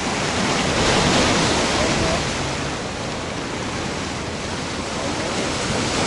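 Sea waves breaking and washing against a rocky shore: a steady rush of surf that swells about a second in.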